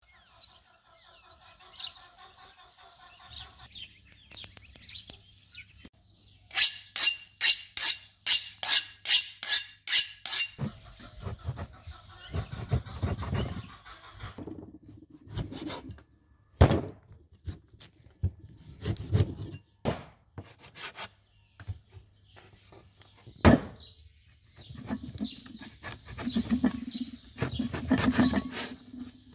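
A heavy cleaver chopping a raw beef tail into pieces on a wooden cutting board: single sharp chops with rubbing and scraping between them, the loudest chops in the second half. Before that, near the start, a bird chirps, and then comes a fast, even run of about fourteen sharp, ringing strokes.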